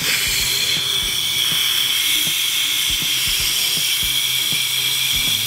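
Butane refill can hissing steadily as its nozzle is pressed onto the mouth of a plastic Coke bottle, spraying liquid butane in, with gas escaping around the nozzle. The hiss starts abruptly.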